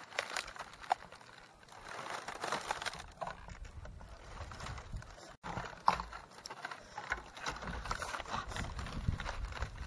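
Dry leaves rustling and crackling under hands tearing apart a grilled chicken, with many small irregular clicks and a low rumble.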